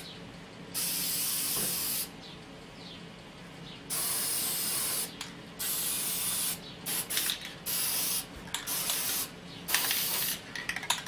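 Aerosol spray can of clear lacquer hissing in a series of bursts: a few spurts about a second long, then shorter, quicker ones in the second half.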